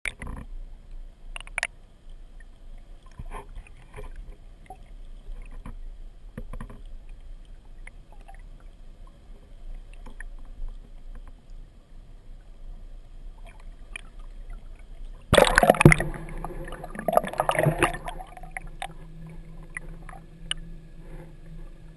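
Boat and water noise with scattered faint knocks. About 15 seconds in comes a loud rush of noise lasting two to three seconds, and after it a steady low hum holds to the end.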